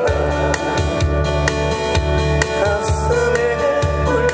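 A man singing a song live into a microphone over a loud backing track with bass, guitar and a steady beat of about two a second.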